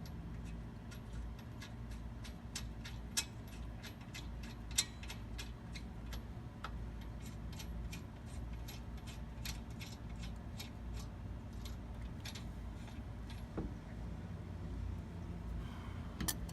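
Light metallic clicks and clinks, a few a second and irregular, as lug nuts are handled and threaded by hand onto the wheel studs. They sit over a steady low rumble.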